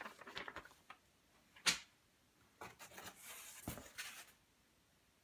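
Paper manual and paper target being handled and put aside: faint rustling and sliding of paper, with two light knocks about two seconds apart.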